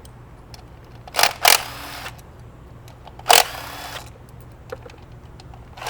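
Cordless impact driver fired in short bursts, backing out the 10 mm ignition coil bolts: two bursts close together about a second in, another just past three seconds. A low steady hum underneath.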